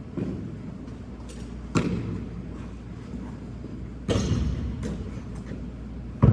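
A basketball bouncing on a hard court: single thuds a couple of seconds apart, the one about four seconds in followed by a short rustling hiss.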